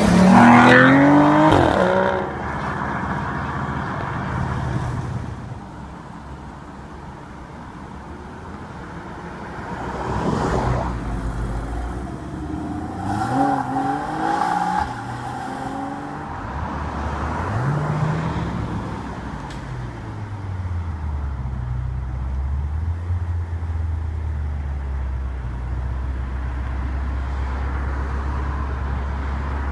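Supercar engines revving and accelerating away one after another. The loudest rising rev is in the first two seconds, with more revs about ten, fourteen and eighteen seconds in. From about twenty seconds on, an engine idles steadily.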